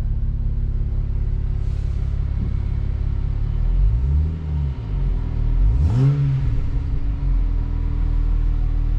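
BMW N54 twin-turbo inline-six, fitted with Pure 600 turbos, idling cold just after its first start on a newly flashed custom tune. It is revved briefly twice, the revs rising and falling back to idle about four and six seconds in.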